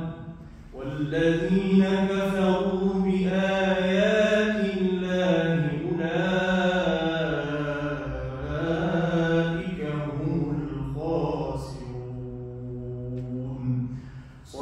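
A man's solo Qur'an recitation in a melodic, drawn-out style, holding long, wavering notes. There are short pauses for breath just after the start and again just before the end.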